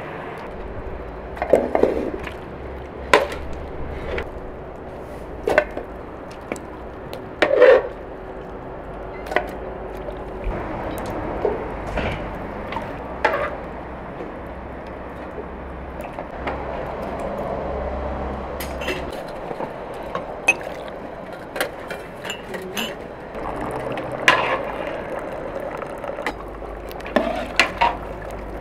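A metal utensil clanking and scraping against a large stock pot and a metal bowl as boiled lamb pieces are lifted out of the broth and dropped into the bowl, with broth splashing and dripping. The clanks come irregularly, a dozen or more, some of them sharp.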